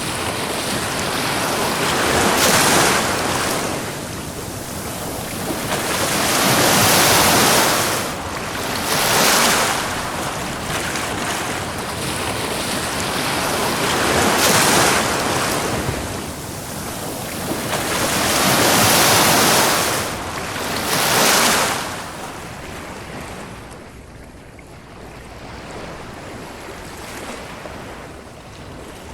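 Ocean waves breaking and washing up a beach, swelling in surges every few seconds, then settling to a lower wash for the last several seconds.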